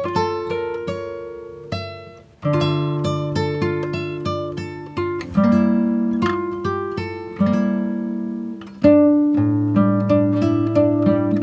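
Background music: acoustic guitar playing picked notes and strummed chords that ring out, with no singing.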